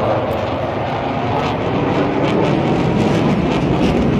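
Aircraft flying past overhead: a loud, steady rush of engine noise.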